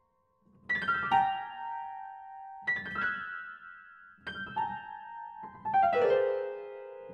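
Solo piano music: short groups of a few quickly struck notes, each left ringing and fading, coming about every one and a half to two seconds and starting just under a second in.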